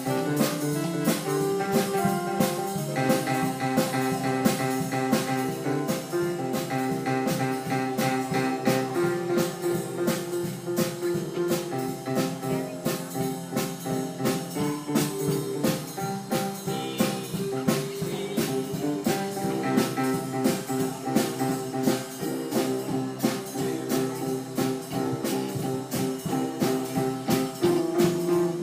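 Live music from a small conducted ensemble: held melody notes over a steady, even percussion beat that carries on without a break.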